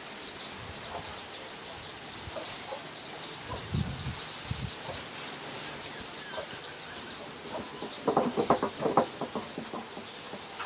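Chickens clucking, with short high chirps running throughout and a quick, louder series of clucks about eight seconds in.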